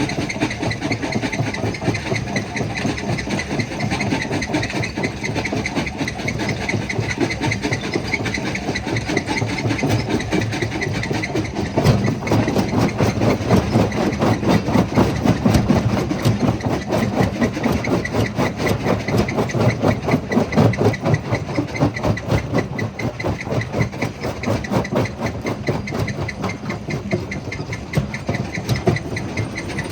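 Jaw crusher running and crushing stone: a continuous dense clatter and rumble of rapid pulses, getting louder and heavier about twelve seconds in.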